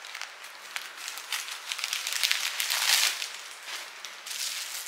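A plastic mailer bag being cut open with scissors and a bubble-wrapped package pulled out of it: crinkling plastic with many small crackles, loudest about three seconds in.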